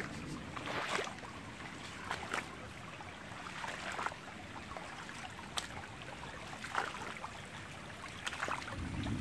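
Small rocky creek trickling and running over stones, a steady water sound with a few short clicks or splashes scattered through.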